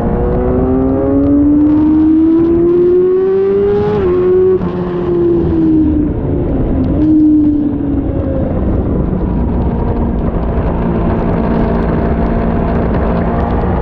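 Sport motorcycle engine on a circuit: pitch climbing under acceleration for about four seconds, a sudden drop at a gear change, then falling as it slows, a brief rise, a steady note, and climbing again near the end, over a steady rushing noise.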